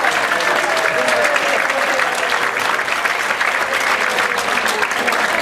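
Audience applauding steadily, many hands clapping at the end of a short talk.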